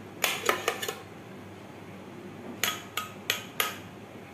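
A stainless steel blender jar knocked against the rim of a ceramic bowl to shake out blended banana. Sharp metallic knocks come three in quick succession, then four more after a short pause.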